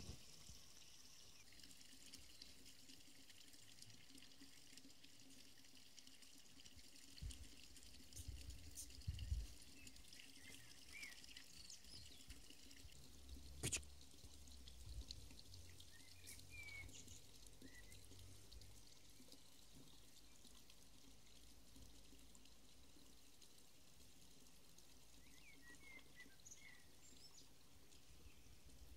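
Near silence: faint outdoor background hiss with a few short, faint bird-like chirps, some soft low bumps and one sharp click about halfway through.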